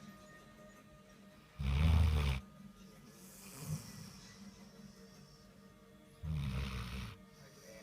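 Dog snoring: two loud snores, each under a second long, about four and a half seconds apart.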